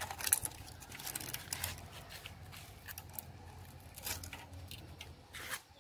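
Faint, scattered clicks and scrapes of a rusted metal hood-rack bracket being handled and turned in the hand, over a low steady hum.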